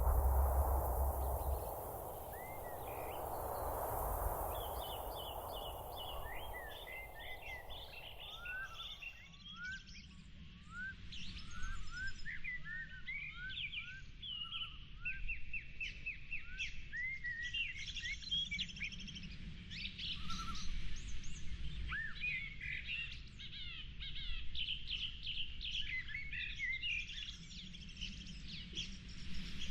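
Several birds chirping and singing in many short, quick calls that glide up and down, over a low rumble. A broad hiss fills the first nine seconds and cuts off suddenly.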